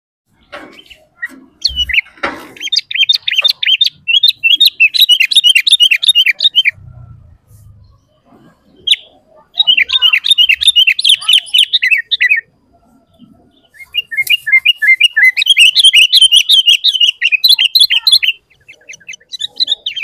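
Sooty-headed bulbul (kutilang) singing in full voice: three long bouts of rapid chirping notes, separated by short pauses.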